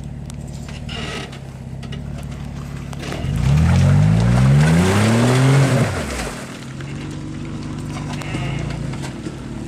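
Jeep Wrangler's engine working at low speed as it crawls up a steep rock ledge, revving up in a rising pitch about a third of the way in for a couple of seconds, then dropping back to a steady low run.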